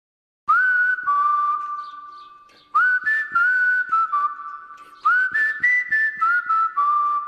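Whistled tune in three phrases, starting about half a second in, near three seconds and about five seconds in. Each phrase opens with an upward scoop into a held note and then steps down through a few held notes, with light tapping beneath.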